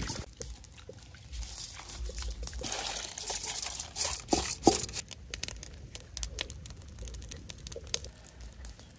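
Water and washed rice sloshing in a steel bowl, then poured into a woven bamboo basket, trickling and pattering as the water drains through, loudest a few seconds in.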